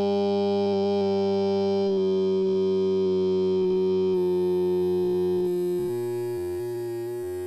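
Music: a long held chord that sinks slightly in pitch, then breaks into shorter changing notes about six seconds in and grows quieter.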